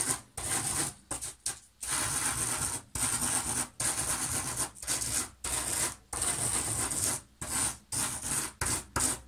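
A stick of coloured chalk scraped back and forth through a heap of salt on paper, a gritty rasping in repeated strokes with short pauses between them. The chalk is being ground into the salt grains to tint them pink.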